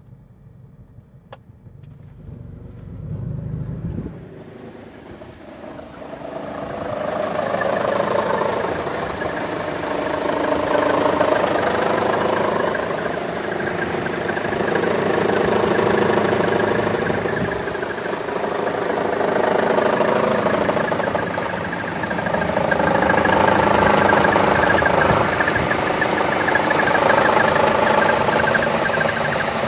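Chevrolet Cruze 1.4-litre turbo four-cylinder idling with the air conditioning loading it, an idle the owner calls a heck of a shimmy shake. A low rumble comes in a couple of seconds in. A broad rushing noise then swells up over the next few seconds and runs on, rising and falling every few seconds.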